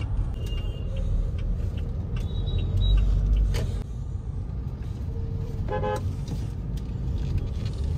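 Car cabin noise while driving slowly through town traffic: a steady low rumble from the engine and tyres. A short car horn toot sounds about six seconds in.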